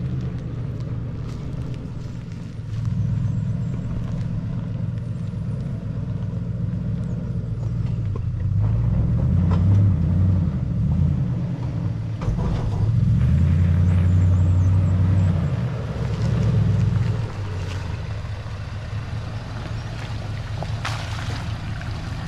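Four-wheel-drive vehicle's engine running while driving, a low rumble whose revs rise and fall several times, with a few light knocks.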